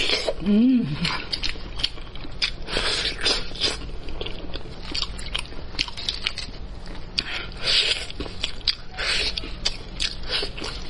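Close-miked biting and chewing of spicy braised pork elbow, the meat and skin gnawed off the bone in a steady run of smacks and clicks. A short hummed note rises and falls about half a second in.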